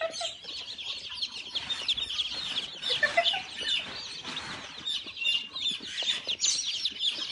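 A crateful of baby chicks peeping, with many short, high chirps overlapping without a break.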